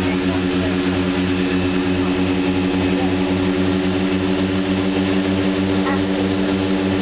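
Propeller aircraft's engines droning steadily with a regular low throb, heard inside the cockpit during the final approach to landing.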